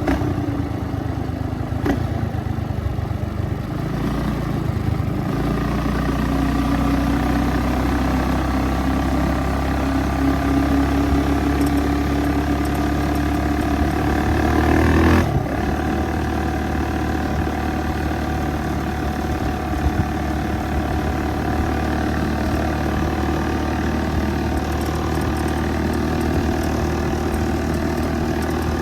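Small engine of a ridden motor vehicle under way. Its pitch climbs gradually as it speeds up, drops abruptly about halfway through as the throttle comes off or it shifts, then runs on at a steady speed.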